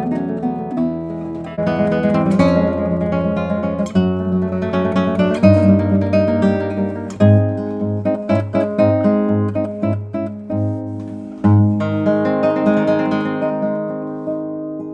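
Nylon-string classical guitar played solo, chords and single notes with strummed accents; the last chord is left ringing and fades near the end.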